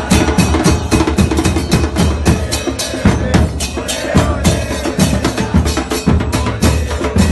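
A football supporters' band of big bass drums (bombos) and other percussion beating a fast, steady rhythm, with the crowd in the stands chanting along.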